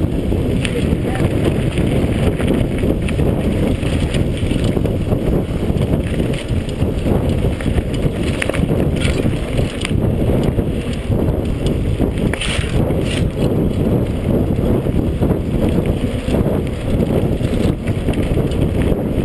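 Wind rumbling on the microphone with the constant rattle and knocking of a mountain bike riding fast down a rough dirt singletrack.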